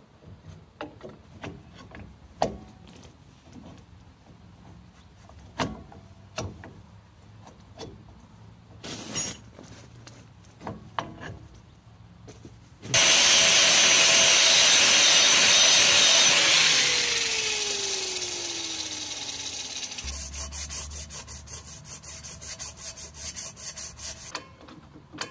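Small metal clicks and knocks of rear drum-brake shoes and their springs being fitted by hand. About halfway through, a loud rushing whir starts suddenly, holds for a few seconds, then fades out with a falling tone. Near the end there is a low hum with rapid, even ticking.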